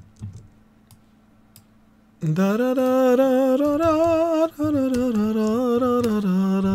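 A few faint mouse clicks, then from about two seconds in a man humming a slow melody in long held notes that step up and down.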